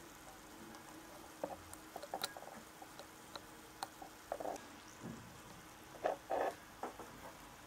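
Scattered small clicks and soft knocks of a glass dropper bottle being handled: the glass pipette goes back into the bottle and the dropper cap is closed, with a couple of louder handling knocks a little after six seconds in.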